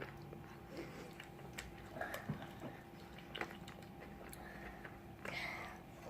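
Faint chewing at close range, with scattered small crunches and clicks and a slightly longer crunchy burst about five seconds in.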